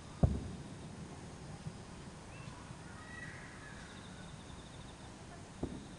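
Distant aerial firework shells bursting: a sharp low boom about a quarter second in, trailing off briefly, and a weaker boom near the end.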